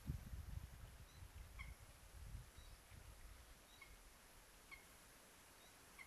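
Common moorhen chick giving short, thin, high peeps, about six of them roughly a second apart, which the uploader took for begging for food. A low rumble runs under the first two seconds.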